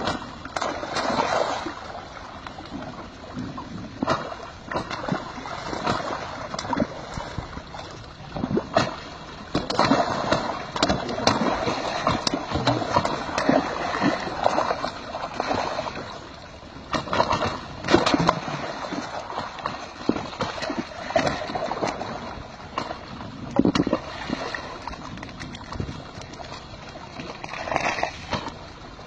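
Fish leaping out of the water and splashing back many times at irregular intervals, over a steady gurgle of water churning at a pipe outlet.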